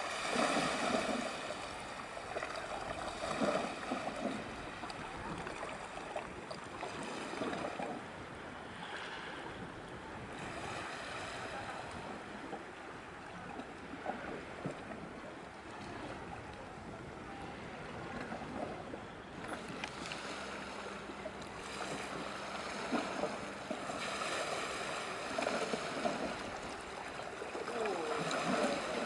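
Water washing and splashing with wind on the microphone, swelling and easing every few seconds.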